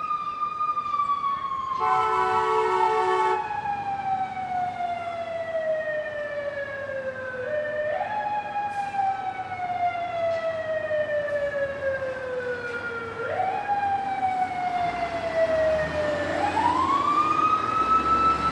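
Fire engine siren wailing, its pitch sliding slowly down and swooping back up three times, with a horn blast of about a second and a half near the start.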